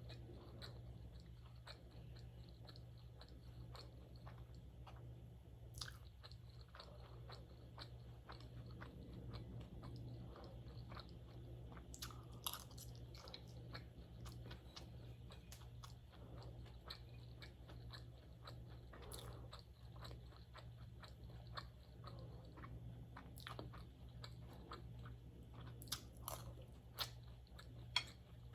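Faint close-miked chewing and mouth sounds of someone eating, with scattered soft clicks and occasional crunches over a steady low hum.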